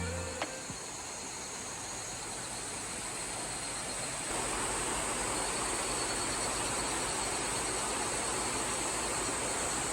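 Waterfall's steady rush of falling water, an even noise that grows louder about four seconds in.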